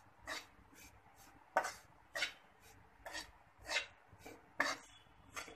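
Metal spatula scraping and stirring besan roasting in ghee in a nonstick pan, in about eight short strokes, one every half second or so.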